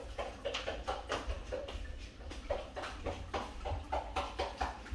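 Irregular light clicks and taps, roughly three or four a second, over a low rumble.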